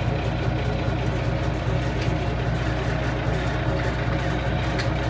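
Ursus 1224's six-cylinder diesel engine running steadily, heard from inside the tractor's cab.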